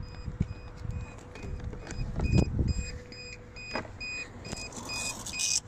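Rapid electronic beeping from the RC boat's electronics, short high beeps about three a second. Under it are low rumbling and a few knocks from the boat being handled.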